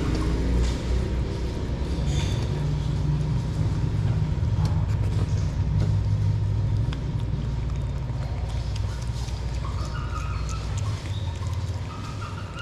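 A low, steady motor rumble like a running engine, easing off near the end, with faint clicking as a Shih Tzu puppy chews raw chicken from a hand.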